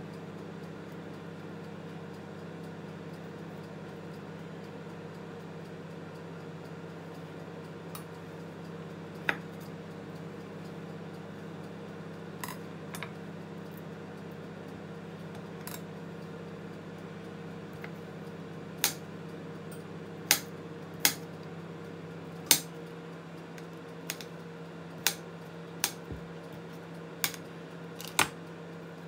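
Sharp, scattered clinks of a knife and utensils against a glass plate and the worktop, a few early on and closer together in the second half, over a steady low kitchen-appliance hum.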